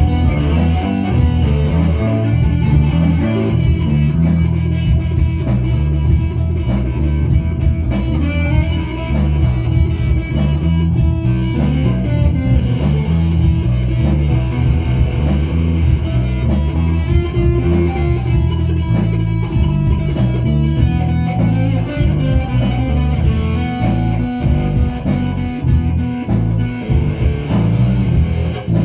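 Two amplified guitars played together in a continuous rock riff, the low notes strongest.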